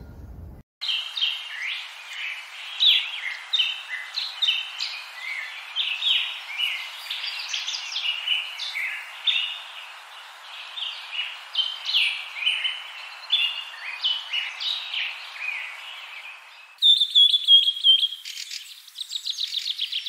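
Many birds chirping and whistling in a dense chorus of short calls. About seventeen seconds in it changes suddenly to a different bird's repeated whistles and a fast trill.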